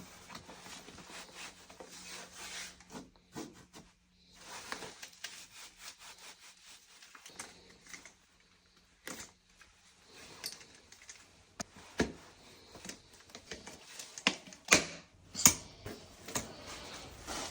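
Irregular rubbing and scraping handling noise, broken by several sharp clicks and knocks, the loudest of them near the end.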